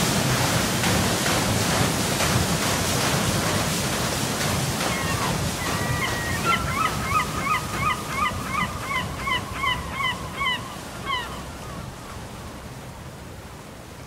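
Steady rushing of water with wind noise. In the middle a bird calls in a quick series of about a dozen short notes, and the whole sound fades out near the end.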